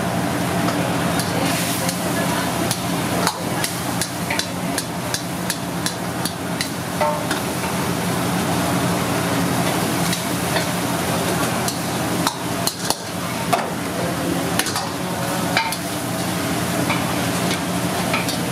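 Steel ladle stirring and scraping in a wok of frying chicken gravy, with frequent irregular metallic clicks and knocks against the pan, over a steady low hum.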